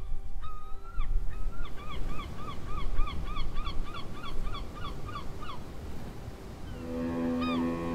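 Gulls calling over the wind and the churning wash of a ferry's wake: a rapid run of repeated cries that bend downward, about three a second, stopping a little past halfway. Near the end a steady low droning tone of several pitches comes in.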